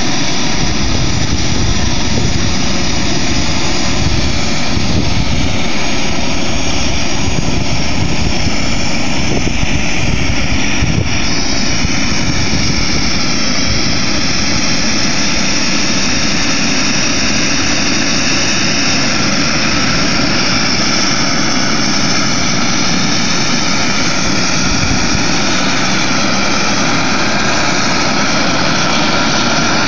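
Small gas turbine of a large radio-controlled scale helicopter running after ignition: a loud, steady rush with a thin whine that slowly climbs in pitch over the last ten seconds or so as it spools up.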